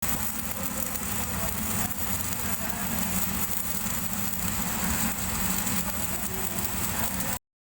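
Stick (SMAW) welding arc crackling steadily over a low hum, cutting off abruptly near the end.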